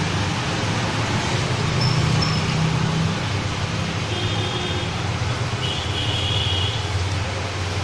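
Steady rushing background noise with a low hum under it, and a few faint high tones about halfway through.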